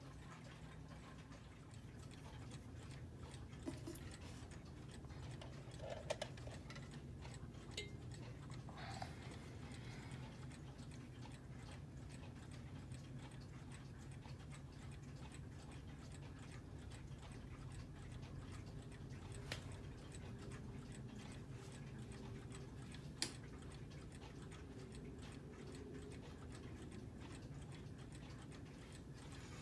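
Clocks ticking steadily and faintly, over a low steady hum, with a few sharper single clicks now and then.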